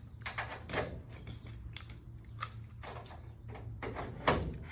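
Scattered light clicks and knocks of hand tools working on sheet metal, with a sharper knock near the end.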